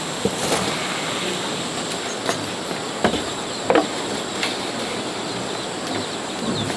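Chicken simmering in a wok of broth, a steady bubbling hiss, with several sharp clanks and knocks as the metal wok is handled and set on a wooden table, the loudest about three seconds in.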